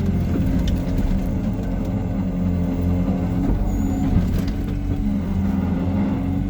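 Diesel engine of a Hyundai R140W-7 wheeled excavator running steadily while it works, with small shifts in pitch as the load changes.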